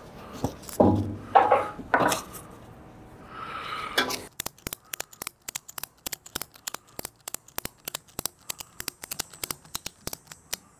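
Ratchet strap being tightened. The nylon webbing rustles and zips as it is pulled through, then from about four seconds in the ratchet is worked, giving a quick run of sharp clicks, several a second, as the strap is cinched tight.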